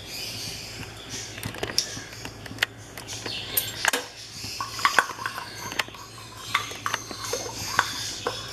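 A metal spoon clinking and scraping against a small jar of ghee as the ghee is scooped out into a pan, in scattered short taps.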